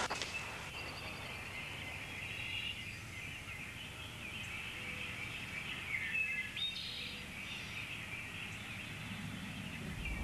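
Quiet outdoor ambience: a steady hiss with faint bird chirps now and then, a little stronger around six to seven seconds in.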